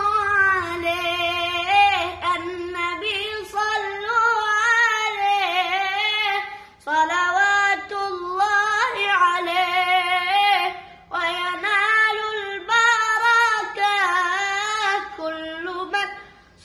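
A boy singing an Islamic devotional song (sholawat) unaccompanied: one voice in long, ornamented phrases with short breaks between them.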